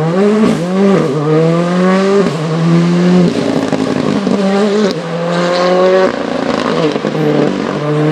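Rally car engine revving hard, its pitch climbing and holding high, dropping and climbing again several times.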